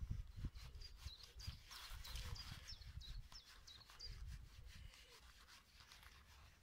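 Faint rubbing and handling noise of hands winding plumber's hemp onto a threaded steel pipe, with small birds chirping in the background.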